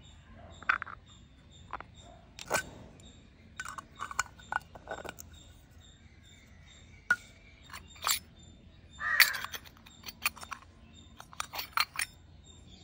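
Miniature stainless-steel toy pots and boxes with plastic lids being handled: a string of small clicks, taps and light metal clinks as lids are taken off and fitted, with a longer scraping squeak about nine seconds in.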